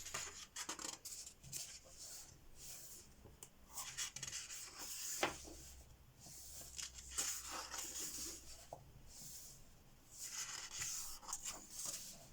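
Pages of a colouring book being turned one after another: soft paper swishes and rustles every couple of seconds, with a few light ticks of paper.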